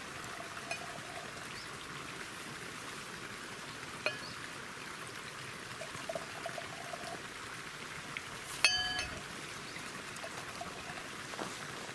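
White wine poured from a bottle into stemmed wine glasses, a steady light trickle, with a short glassy clink about two-thirds of the way through.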